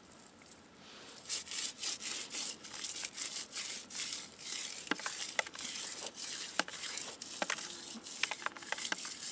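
Dry barley ears rubbed hard between the palms in hand-threshing: a quick, scratchy rustling of husks and awns, with small sharp ticks in the second half as grains and chaff drop into a plastic bucket.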